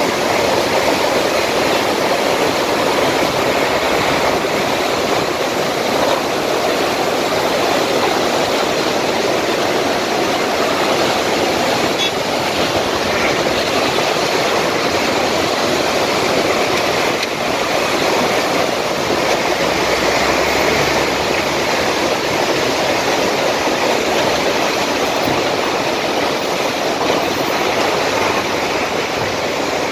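Floodwater of the Palar river rushing and churning below a bridge, a loud, steady rush of water, with a slight low rumble about two-thirds of the way through.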